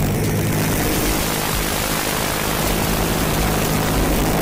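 The TMC Dumont motorcycle's 1960s Rolls-Royce Continental six-cylinder aircraft engine running steadily as the bike is ridden, with a coarse, aircraft-like roar.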